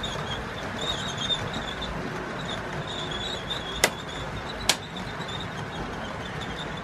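Model train running along the track, its wheels or motor giving an on-and-off high squeal over a steady rolling noise. Two sharp clicks come just under a second apart, about four seconds in.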